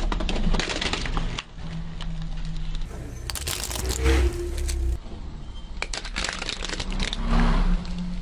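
Plastic toys cracking and crunching under a slowly rolling car tyre: a toy auto-rickshaw, then a Rubik's cube breaking apart. There are three bursts of snapping and crackling over a low hum.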